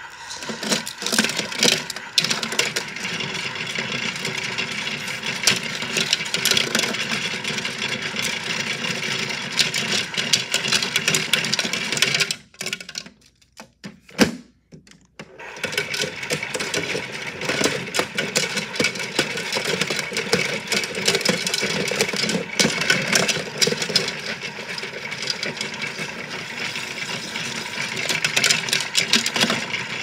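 Washmatic toy washing machine's small motor turning its drum, with plastic toy cars tumbling and rattling inside. About twelve seconds in it stops for roughly three seconds, with a single click, then runs again.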